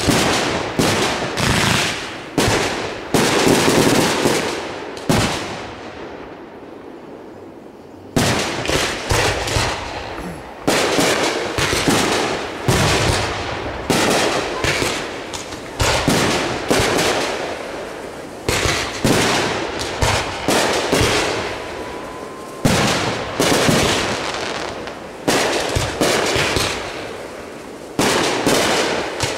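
Aerial fireworks shells bursting in quick succession: sharp bangs one after another, each dying away, with a lull of a couple of seconds about six seconds in before the bangs resume.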